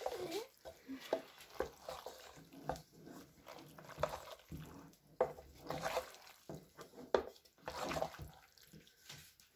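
A wooden spoon stirring fusilli pasta into thick white sauce in a saucepan: irregular wet squelches and slops, with a few sharper knocks of the spoon against the pan.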